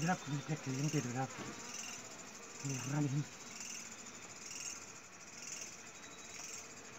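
Crickets chirping in a steady chorus that swells about once a second. A low male voice murmurs briefly at the start and again about three seconds in.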